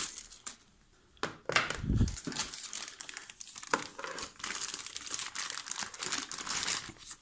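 Plastic bag crinkling and rustling as hands unwrap a laptop power adapter from its pink plastic bag, starting about a second in, with a few sharp crackles.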